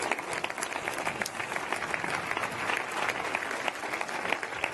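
A large crowd applauding, with steady, dense clapping throughout.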